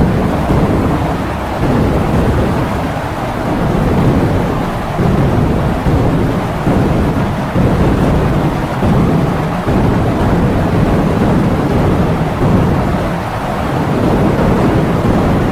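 Heavy rain driven by strong wind: a dense, low rushing noise that swells and eases in gusts every second or two.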